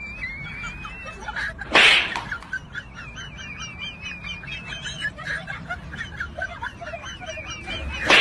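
Several small birds chirping and twittering continuously, with two short, loud bursts of noise, one about two seconds in and another just before the end.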